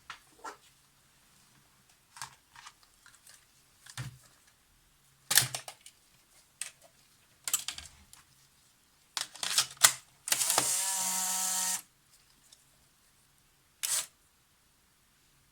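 Polaroid folding SLR instant camera being fired and handled: a string of sharp shutter and mechanism clicks, then its motor runs for about a second and a half with a steady whine, cycling the mechanism after the shutter release. One more click follows near the end.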